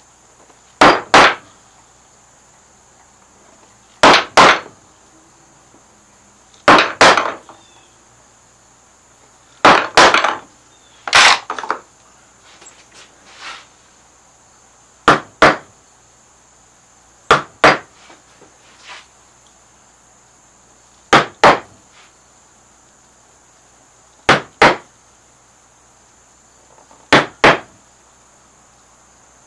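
Round wooden mallet striking a carving gouge, driving it into Alaskan yellow cedar to set in a carved outline. The blows come in quick pairs, about ten pairs at roughly three-second intervals, with a few light knocks between them as the gouge is moved.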